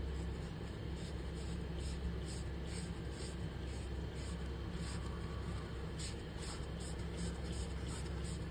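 Tissue rubbed back and forth over a CPU cooler's aluminium heatsink base, wiping off old thermal paste, in even strokes about two to three a second, over a steady low hum.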